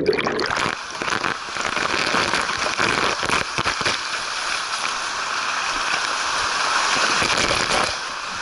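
Water rushing steadily through a water slide: a continuous watery hiss with occasional low knocks.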